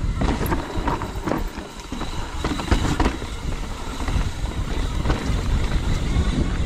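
Mountain bike riding down a rough, rocky trail: wind buffeting the microphone over a steady rumble of tyres on rock and dirt, with frequent sharp knocks and rattles from the bike hitting rocks.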